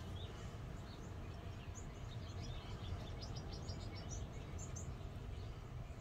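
Wind rumbling on the microphone, with small birds chirping in short high notes, including a quick run of chirps about halfway through.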